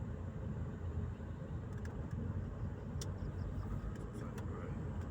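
Car moving slowly in crawling traffic: a steady low rumble of engine and road noise, with a few short clicks.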